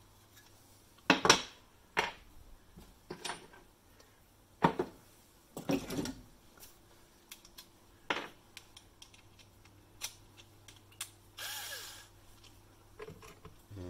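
Tools and loose plastic parts being handled and set down on a wooden workbench: a series of irregular knocks and clicks, with a short scraping rustle a little after the middle.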